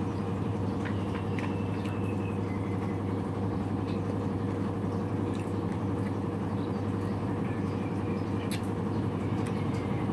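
Steady low mechanical hum, with a few faint clicks.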